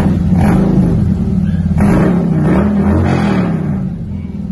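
2018 Harley-Davidson Freewheeler's Milwaukee-Eight V-twin being revved several times through 4-inch DNA megaphone slip-on mufflers, with the stock catalytic converters still in place. The exhaust note rises and falls with each blip of the throttle, then eases back toward idle near the end.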